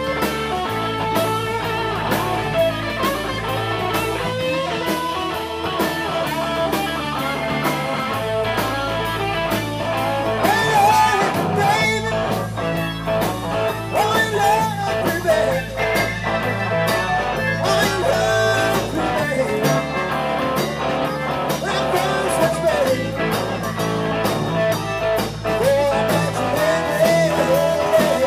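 Live blues band playing an instrumental stretch with electric guitar, bass guitar and a drum kit keeping a steady beat. From about ten seconds in, a harmonica cupped to the vocal microphone plays bending, wavering notes over the band.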